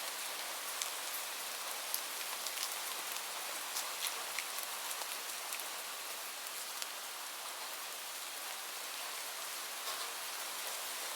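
Steady rain falling: an even hiss with scattered sharper drops striking a surface.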